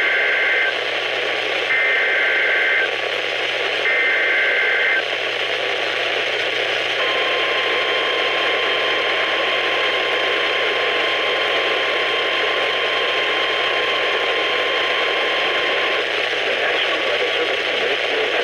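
NOAA Weather Radio alert coming through a weather radio receiver. It opens with the three SAME header data bursts, a harsh two-tone digital screech of about a second each, a second apart. After a short gap the steady 1050 Hz warning alarm tone sounds for about nine seconds, all over a constant hiss of radio static.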